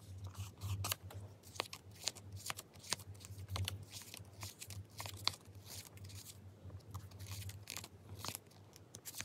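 Paper and stickers handled over a notebook page: scattered light clicks, scratches and rustles, with a low steady hum beneath.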